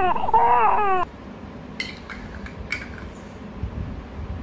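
A high, wailing cry, like crying or a crying sound effect, cut off about a second in, followed by a few soft clicks.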